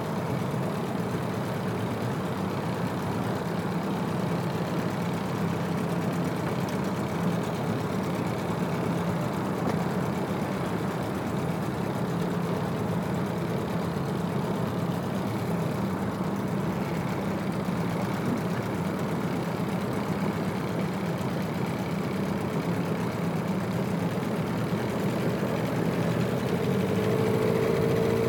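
Small outboard motor running steadily as it pushes a boat along, getting a little louder near the end.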